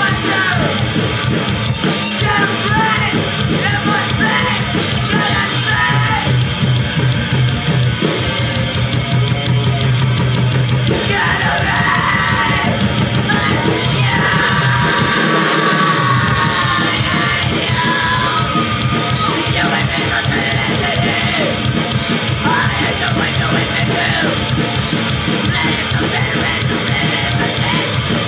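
Punk rock band playing loud and fast live, with yelled vocals over drums and the full band.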